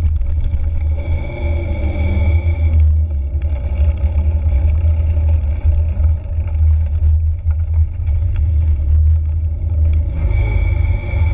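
Low rumble of wind and tyres on a handlebar-mounted action camera while riding a bicycle, with rattling over rough ground near the start. A steady high buzz comes in about a second in, stops about three seconds in, and returns near the end.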